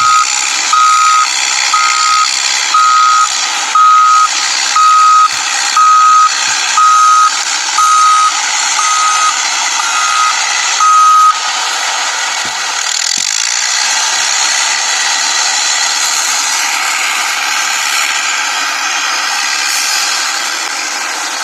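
Toy remote-control excavator's built-in warning beeper sounding about once a second, one steady high tone per beep, stopping about eleven seconds in. Under it runs a steady whirring hiss from the toy's small electric motors, with a couple of light plastic knocks around twelve seconds in.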